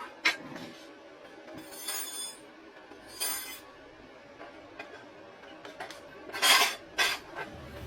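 Steel parts clinking and knocking as they are handled, with two brief scrapes in the first half and a louder scrape and clank near the end.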